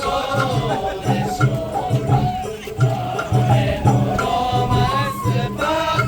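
Japanese festival hayashi ensemble playing. Drums beat a steady rhythm of about two strokes a second under a wavering melodic line.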